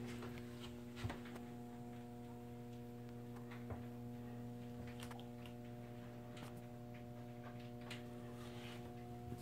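Steady low electrical or machinery hum with a few higher tones held above it, and scattered light clicks and knocks a handful of times.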